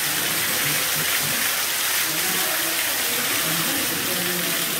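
Steady rush of water from a two-tier underground waterfall in a cave, an even hiss of falling water.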